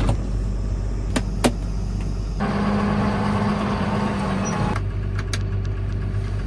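Tractor engine running steadily at idle, heard from inside the cab. There are two sharp clicks about a second in, and a louder stretch with a steady hum for a couple of seconds in the middle.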